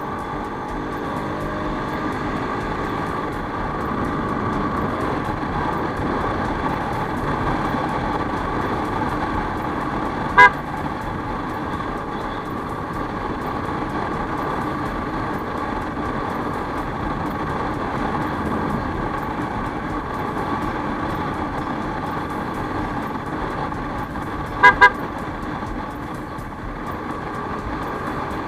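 Steady riding noise of a Yamaha NMAX scooter on the road, with a short horn beep about ten seconds in and two quick beeps near the end.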